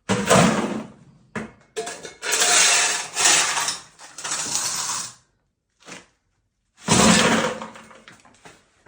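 Broken concrete rubble clattering and scraping in three loud bursts, with sudden silent gaps between them.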